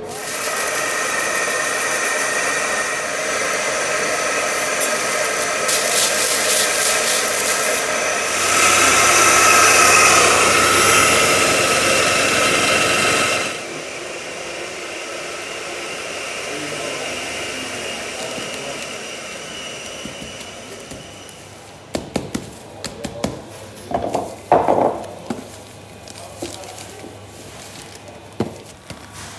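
Commercial electric coffee grinder running with a steady whine, louder from about 8 seconds in and cutting off suddenly about halfway through. After it stops, a few sharp knocks and rustles of handling near the end.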